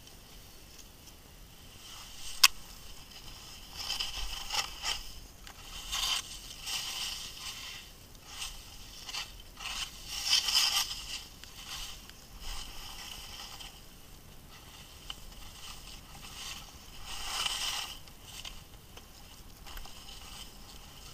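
Skis hissing and scraping through snow in swells as the skier turns down a tree run, with one sharp click about two and a half seconds in.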